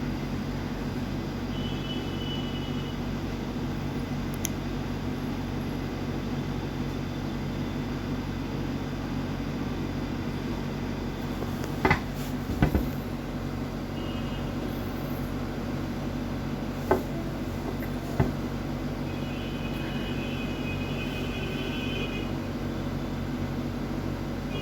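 Steady mechanical hum with a few sharp clicks and taps about halfway through and again later, from a screwdriver and screws being worked out of a laptop's plastic bottom cover.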